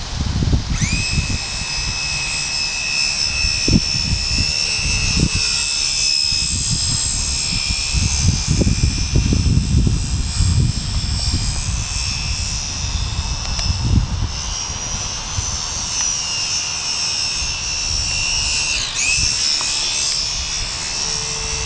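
Radio-controlled model airplane's motor and propeller with a steady high whine. It spins up about a second in, then dips and rises again near the end. Wind gusts rumble on the microphone.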